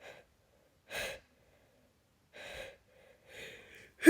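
A woman's short gasping breaths, four in a row, during a sneezing fit brought on by pollen allergy: the catching of breath that builds up to the next sneeze.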